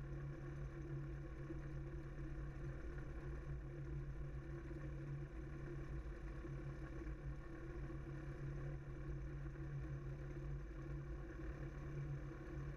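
Aerolite 103 ultralight's engine running steadily while the aircraft taxis on the ground.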